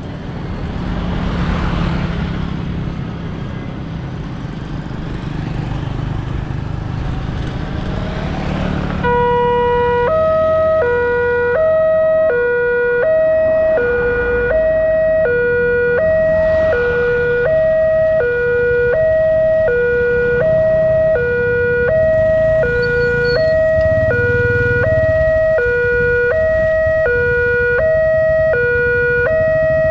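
Road traffic passes over the crossing. About nine seconds in, the railway level-crossing warning alarm starts: a loud electronic two-tone chime that switches back and forth between its two notes about every two-thirds of a second, signalling that a train is approaching and the barrier is closing.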